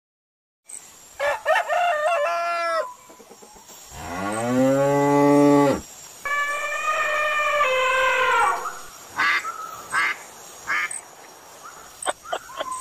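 A cow mooing in one long low call about four seconds in, among other animal calls: a few short calls before it and a higher drawn-out call after it, then scattered clicks.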